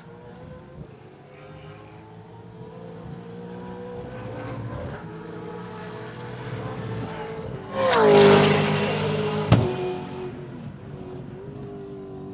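V8 Supercars race cars lapping a circuit: engine note building as a car approaches, then a loud pass about eight seconds in with the pitch dropping as it goes by. A sharp crack comes a moment later, and a more distant car runs on near the end.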